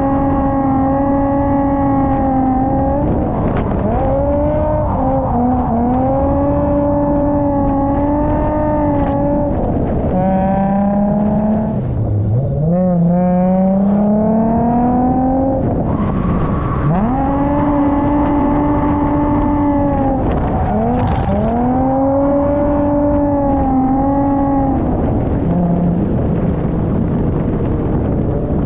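Holden VY Commodore Calais engine at high revs while drifting. The revs are held steady in long flat stretches, then drop and sweep back up several times, over a steady haze of tyre and road noise.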